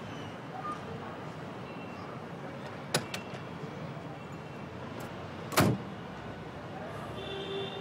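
A car door's latch clicks open about three seconds in, and a little over two seconds later the door is shut with a solid thud, the loudest sound.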